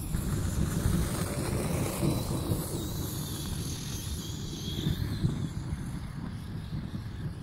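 Wind buffeting the microphone, with a faint high whine that rises and falls from the RC monster truck's brushless electric motor as it drives.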